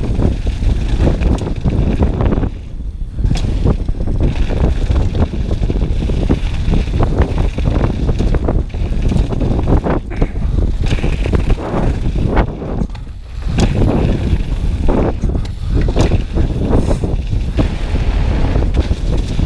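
Downhill mountain bike riding fast over a gravel trail: wind rushing over the action-camera microphone, tyres on loose gravel, and the bike rattling and knocking over bumps, with two brief lulls.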